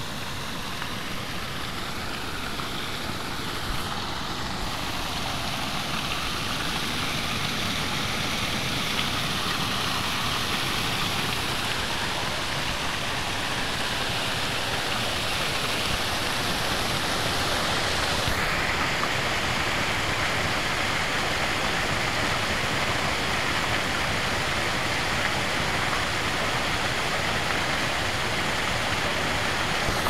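Small creek waterfall pouring over a low wooden weir: a steady rushing of falling water that grows gradually louder.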